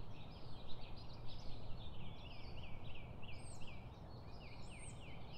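A dense chorus of small birds chirping, many short rising and falling notes overlapping, over a low steady rumble.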